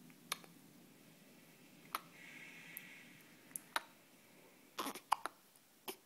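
Newborn baby hiccuping: a string of short, sharp hics about every one to two seconds, coming closer together near the end.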